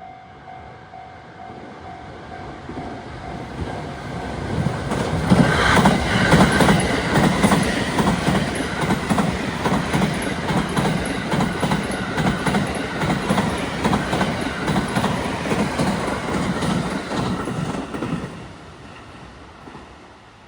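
Sunrise Seto/Izumo 285-series electric sleeper train passing at speed. It builds up over the first few seconds, then a long run of rhythmic clickety-clack from the wheels over the rail joints, cutting off about 18 seconds in and fading away.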